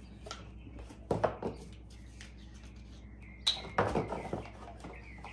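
Handling knocks and scrapes as a trowel puts powdered joint compound into a plastic mixing pan: a couple of knocks about a second in, then a cluster of clicks and knocks around three and a half seconds in as a plastic water bottle is picked up.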